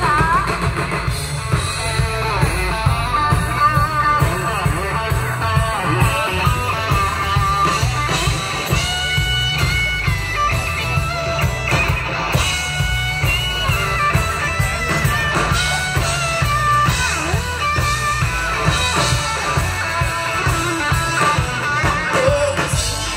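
Amplified live band music led by electric guitar, with a steady beat and a heavy bass end.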